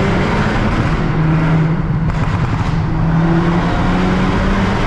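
Turbocharged four-cylinder engine and aftermarket exhaust of a Volkswagen Golf R running steadily while driving, with road noise coming in through open windows; the engine note steps up a little near the end.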